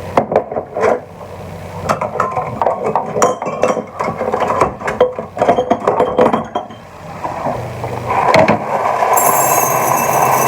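Rapid clinks and rattles of kitchenware being handled, followed about eight seconds in by a steady rushing hiss.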